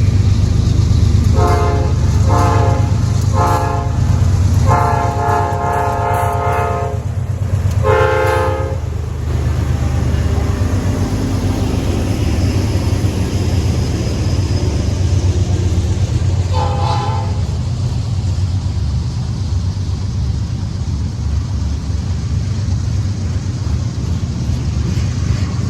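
Locomotive air horns blasting over the steady low rumble of the train: three short blasts, a long one of about two seconds and another short one in the first nine seconds, then a single short blast about 17 seconds in.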